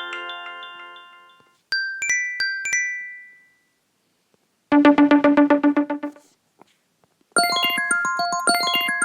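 Old iPhone ringtones and alert tones played one after another. A marimba-like tune fades out, then comes a short chime of a few bright notes and, after a pause, a fast pulsing ring for about a second and a half. Near the end another quick melodic ringtone starts.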